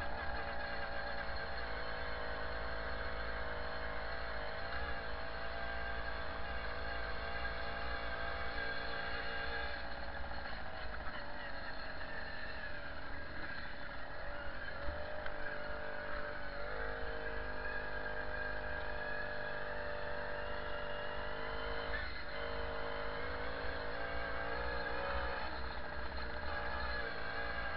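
Babetta 207 moped's 50 cc single-cylinder two-stroke engine running under way on a dirt track, picked up by a helmet-mounted camera over a steady low rumble. Its pitch dips and picks up again a few times around halfway as the throttle eases and opens.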